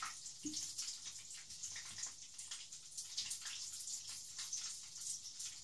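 Breaded chicken drumsticks frying in hot sunflower oil in a pan: a steady sizzle of many small, high-pitched crackles.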